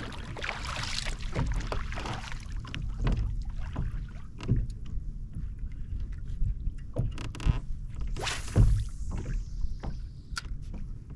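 Small clicks and knocks of tackle being handled on a fishing kayak over a steady low rumble of water and wind. About eight seconds in comes a cast: a sharp swish, then the fishing line hissing off the reel with a thin whistle that falls in pitch as it slows.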